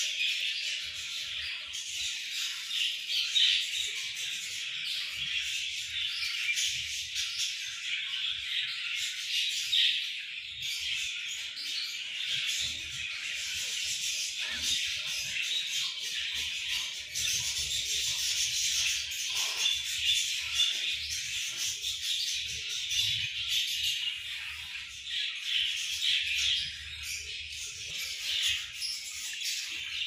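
Budgerigars chattering and chirping without a break, a dense run of quick, high warbling notes.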